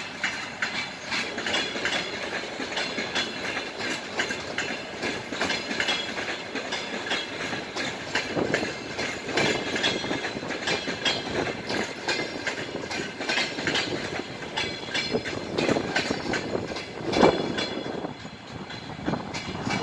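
Passenger train rolling past as it pulls out of the station, its wheels clicking and clacking over rail joints in a steady rattle, with a few louder knocks, the loudest about seventeen seconds in.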